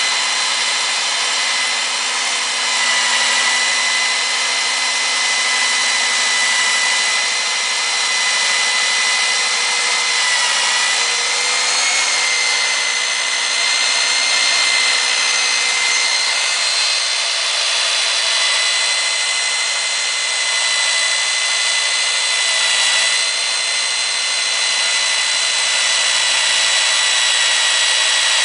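KOR-IT K-806 electric core drill, with its 1500-watt motor, running steadily on its stand as the core bit is fed down into a concrete slab. A constant high motor whine sits over the grinding of the bit in the concrete.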